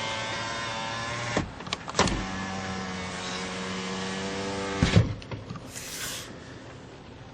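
2015 Toyota Corolla power window motor whining as it drives the door glass. It stops with a clunk about a second and a half in, then starts again half a second later, runs steadily for about three seconds and stops with another clunk. A brief hiss follows about a second later.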